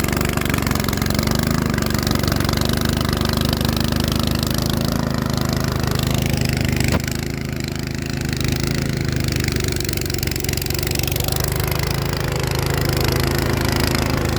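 Snow thrower engine running steadily while it clears snow. About seven seconds in there is a sharp click, after which it runs a little quieter.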